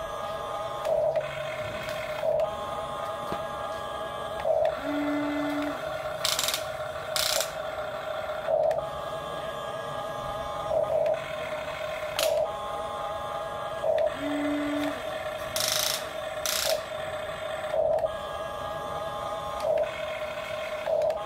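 HuiNa RC toy excavator's small electric motors and plastic gearboxes whining steadily as the boom, arm and cab move, swelling every second or two, with a couple of short lower hums and a few brief hissy bursts.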